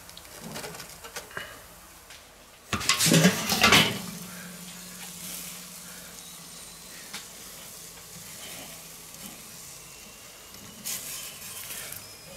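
Chicken breasts laid one by one with metal tongs onto the hot grate of a charcoal kettle grill, sizzling as they hit the grate, with the tongs clinking on the metal. The loudest burst of sizzle and clatter comes about three seconds in, and a shorter one comes near the end.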